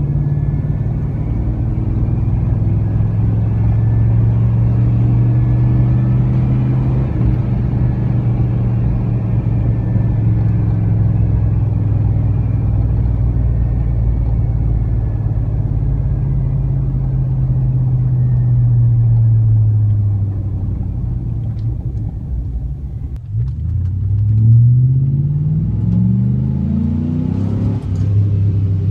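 A 5.3-litre LM7 V8 truck exhaust through a single-chamber performance muffler, running at a steady low drone while cruising. It eases off about twenty seconds in, then accelerates with the pitch climbing near the end.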